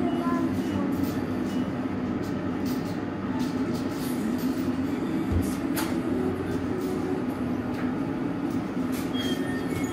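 Steady low rumble of a glassblowing hot shop's furnace and glory hole burners and blowers running, with a few faint clicks and a single low knock about five seconds in.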